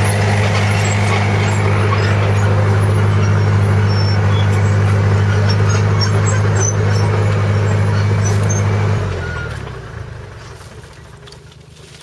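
Engine of the vehicle carrying the grape bin running at a steady idle, a loud low hum that fades away about nine seconds in. Faint scattered clicks are left once it dies down.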